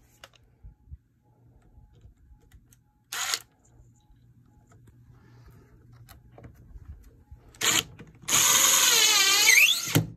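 Cordless drill driving a screw down: two short bursts of the motor, then a longer run of about two seconds near the end, its pitch dipping and rising as the screw takes up.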